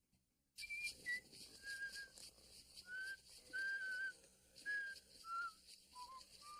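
Someone whistling a tune, starting about half a second in: a string of short, clear notes that begin high and work downward in pitch.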